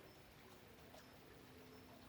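Faint rain: a soft, even hiss with scattered drops ticking, one a little sharper about a second in.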